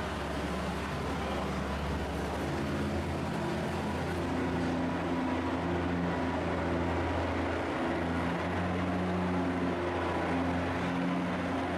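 Antique pulling tractor's engine running at low speed, its pitch stepping up and down a few times as the throttle is worked.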